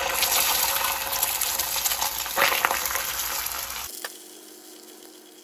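An egg frying in hot oil in a bare, unseasoned 1960s BSR cast iron pan: a loud sizzle with some crackles as it hits the oil. The sizzle drops suddenly to a much quieter hiss about four seconds in.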